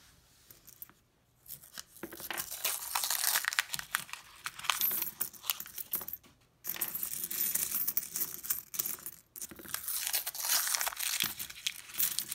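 Nickels clinking as they are pushed around a pile, and the paper wrapper of a coin roll rustling and tearing as it is unrolled. A steady crackle of small clicks and paper noise begins about two seconds in, with a short break near the middle.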